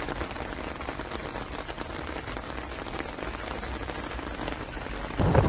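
Steady rain falling on wet pavement, an even patter.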